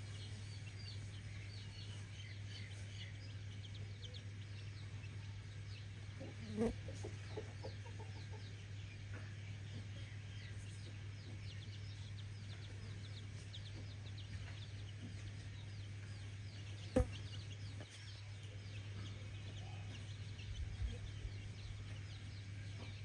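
Free-range chickens clucking, with a clear cluck about six seconds in, over a constant scatter of short high-pitched chirps. A steady low hum runs beneath, and a single sharp click sounds about 17 seconds in.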